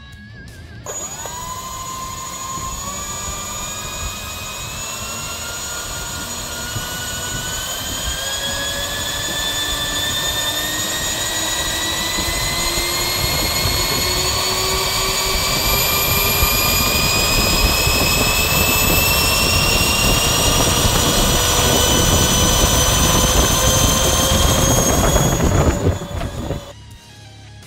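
Twin 70 mm electric ducted fans of an LX YF-23 Black Widow II RC jet being throttled up on the ground: a whine that starts about a second in, climbs slowly and steadily in pitch and loudness, then stops suddenly near the end.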